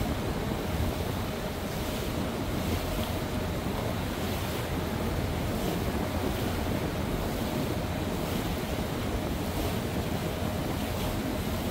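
Regal motorboat under way: its engine runs steadily beneath a wash of water along the hull, with wind buffeting the microphone.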